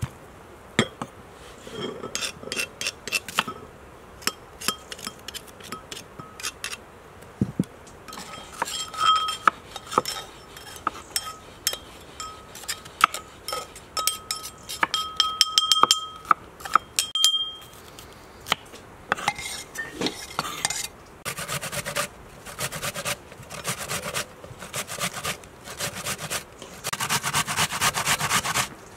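Brass mortar and pestle pounding walnuts: sharp metallic clinks that ring out, then a spoon tapping and scraping the ground nuts out of the mortar. About three quarters of the way in, a red onion is rubbed hard on a metal box grater in quick, even strokes.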